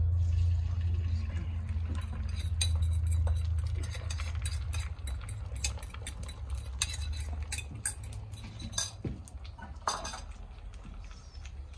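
A metal utensil clinking and scraping against an iron skillet as egg is stirred in it, in short irregular taps. A low rumble runs under the first few seconds and then fades.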